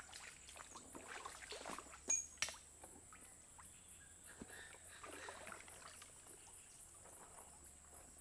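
Faint scattered rustling and light knocks, with two sharp clicks about two seconds in, over a steady high-pitched hum.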